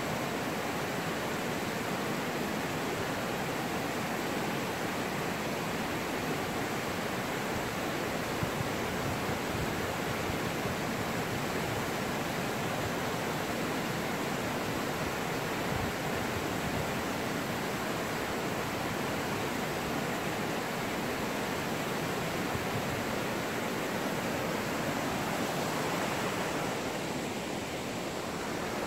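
Steady rush of a fast mountain stream tumbling over rocks and whitewater, slightly softer near the end.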